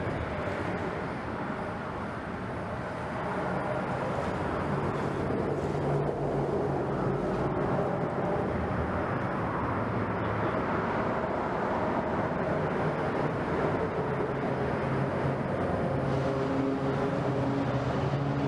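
A steady engine hum over a constant hiss, getting slightly louder about three seconds in.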